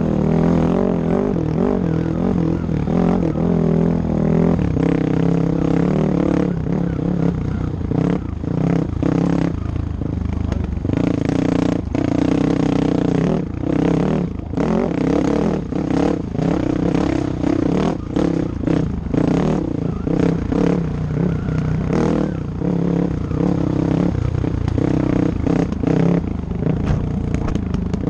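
Off-road motorcycle engine running hard on a dirt trail, its pitch rising and falling with the throttle and dropping out briefly many times as the throttle closes. Clatter and scrape from the bike over the rough ground.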